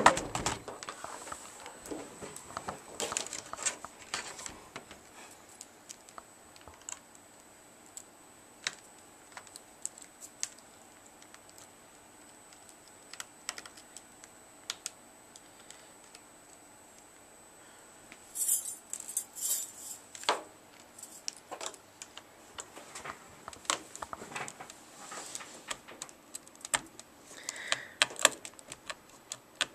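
Scattered clicks, taps and scrapes of a small tool and fingers working at the plastic screen bezel of a Sony VAIO laptop, prying it loose, with a cluster of sharper cracks about eighteen to twenty seconds in.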